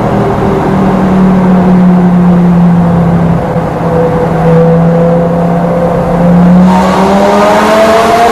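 Lamborghini Gallardo LP560-4's V10 with an Armytrix exhaust, heard from inside the cabin in a tunnel. It runs at steady revs, then revs up near the end with a rising pitch.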